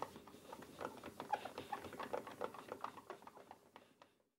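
Cloth rubbing over a lacquered wooden panel in quick strokes, a faint irregular scratchy patter of the hand-polishing stage with piano polish; it fades out near the end.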